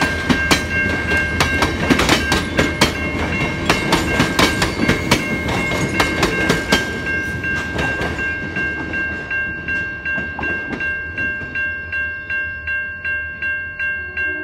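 Passenger-car wheels clacking over the crossing rails as the end of a train passes. The clacking dies away about eight seconds in, under the steady ringing of a low-pitched Safetran Type-3 electronic crossing bell at about two strikes a second, which is left alone once the train has gone.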